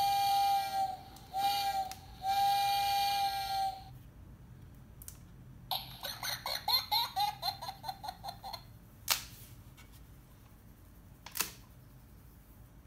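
Steam-whistle sound effect from a children's sound book's electronic sound panel, played through its small speaker: three blasts, the last the longest. Then about three seconds of recorded monkey chattering from the panel, and two sharp clicks.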